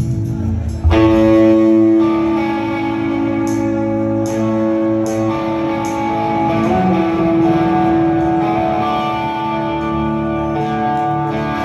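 Live rock band playing, with acoustic and electric guitars ringing out sustained chords; a loud strummed chord comes in about a second in.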